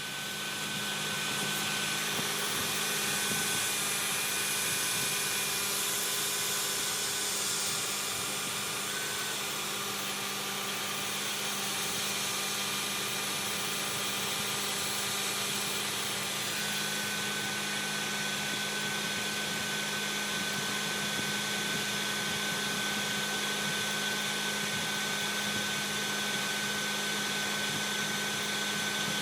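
CNC knee mill running a toolpath: steady machining noise with a low hum and a high whining tone. The whine breaks up and drops out for several seconds in the middle, then comes back steady.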